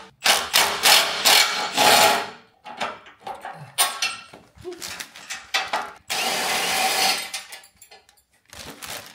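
Cordless drill-driver running in two bursts, about two seconds and then about a second and a half, backing out the bolts that hold a motorcycle to its shipping-crate frame. Between the bursts the tool and metal parts click and clatter.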